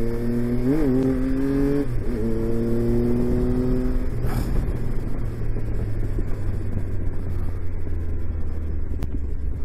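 Triumph Tiger 1200's three-cylinder engine, heard from the rider's seat, accelerating with rising pitch and two quick upshifts in the first two seconds. About four seconds in the throttle closes and the engine note drops away, leaving low wind and road rumble.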